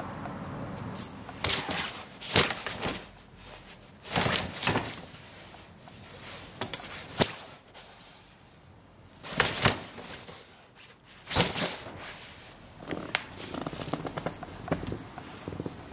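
A feather wand cat toy swished and brushed against a nylon play tent, making short rustling, scraping bursts at an uneven pace with brief lulls between them, a thin high ringing note sounding during the bursts.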